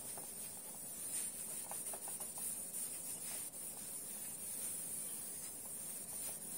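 A felt whiteboard eraser wiping across a whiteboard, a soft steady rubbing with faint scattered taps, over a steady high-pitched hiss.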